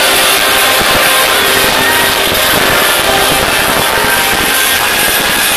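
Live rock band playing through a big outdoor PA, recorded on a phone microphone that is overloaded. The music comes out as a steady, harsh, distorted wash with the notes barely showing through.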